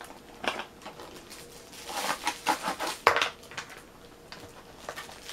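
Cardboard and plastic packaging rustling and crinkling as a throwing axe is unpacked, with a few light knocks and clicks, one of them as a small loose piece of wooden packing falls out.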